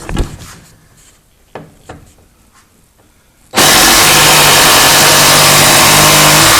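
Porter-Cable cordless impact driver hammering a 4-inch lag bolt into a 2x4. It is very loud, starts abruptly about three and a half seconds in, runs steadily for about three seconds and stops sharply. A few light handling clicks come before it.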